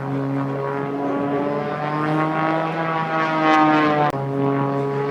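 Small propeller-driven stunt plane's piston engine running in flight, its buzzing note climbing in pitch and growing louder, then dropping in pitch suddenly about four seconds in as the plane passes.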